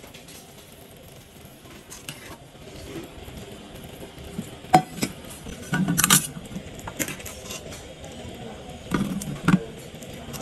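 Wire spider strainer clinking and scraping against a stainless steel bowl as boiled meat, bones and vegetables are tipped into it. There is a run of sharp metal clinks, loudest about six seconds in and again about nine and a half seconds in.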